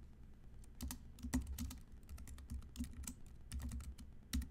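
Typing on a computer keyboard: a run of irregular key clicks starting about a second in.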